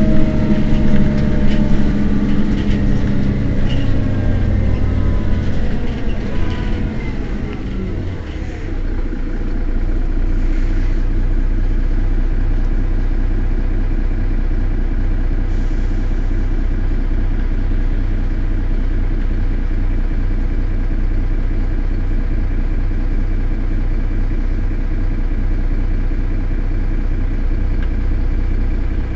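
Mercedes-Benz Citaro city bus standing with its engine running: a whine and the engine note fall slowly in pitch over the first eight seconds or so, then it settles into a steady idle with a low rumble.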